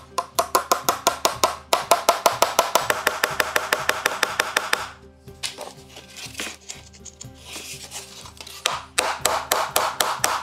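Ball-peen hammer tapping rapidly on an old iron hasp, about nine light ringing strikes a second. The tapping stops about five seconds in and starts again near the end.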